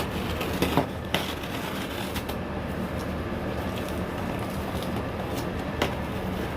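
A shipping package being opened by hand: scattered crinkles and clicks of the packaging over a steady background hum.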